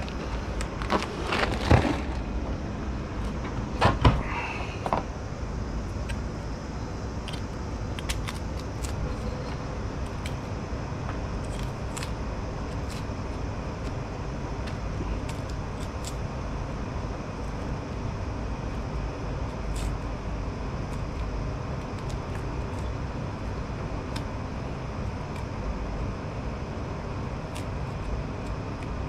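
Kitchen handling sounds over a steady low rumble: a few sharp clatters and knocks of trays and utensils in the first five seconds, then only faint scattered clicks as a knife and garlic clove are handled.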